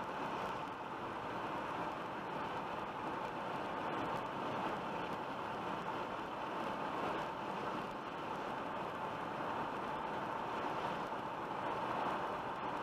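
Steady road and tyre noise heard inside a car cruising at highway speed, with a faint steady whine running through it.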